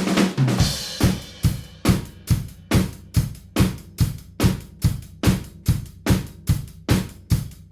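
Recorded drum kit playing a steady beat, kick and snare with hi-hat and cymbals, a bit over two hits a second after an opening cymbal crash. It is heard through room mics placed behind soft gobos and pointed away from the kit, so the hard brick room's reflections are deadened and less hi-hat spill comes through.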